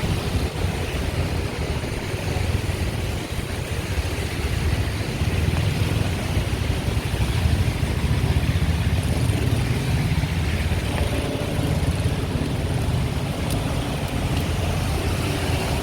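Heavy city road traffic: car engines running and idling in slow traffic, a steady low rumble.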